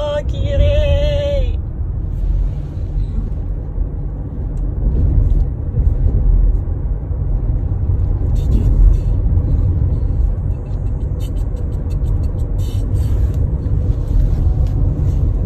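Steady low rumble of road and engine noise inside a moving Toyota car's cabin. There is a short snatch of singing at the start and scattered light ticks in the second half.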